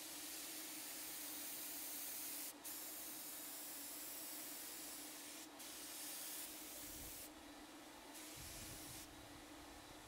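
Paint spray gun hissing as the trigger is held in long passes over a dresser drawer front, with two brief breaks, easing off about six and a half seconds in and giving one more short burst near the end. A faint steady hum runs underneath.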